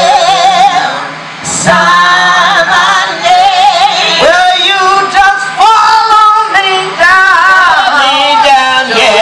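A woman singing a spiritual with wide vibrato on long held notes, breaking off briefly about a second and a half in before going on.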